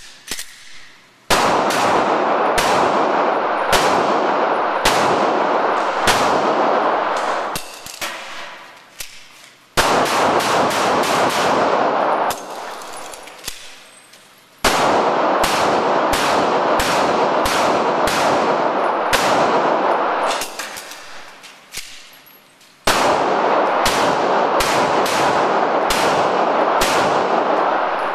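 Handgun fired in strings of rapid shots, about two a second, each shot echoing off the concrete walls of an indoor range. Four strings start about one, ten, fifteen and twenty-three seconds in.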